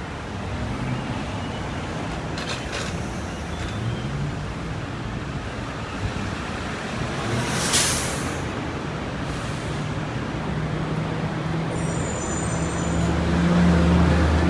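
Steady city street traffic noise as vehicles pass along a Manhattan avenue. There is a short sharp hiss about halfway through, and a heavy vehicle's engine grows louder near the end.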